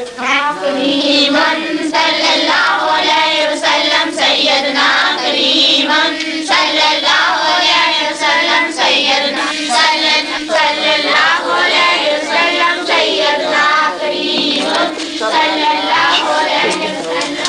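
High voices singing a devotional song in one continuous melody of short, bending phrases; the singing starts suddenly.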